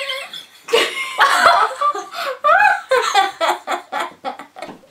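Several teenage girls laughing and giggling together in broken bursts, the bursts coming quicker and shorter towards the end.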